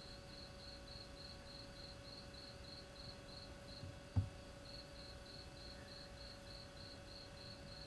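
A cricket chirping in a regular train of short high chirps, about three a second, pausing briefly near the middle. A faint steady hum runs underneath, and a single low thump comes about four seconds in.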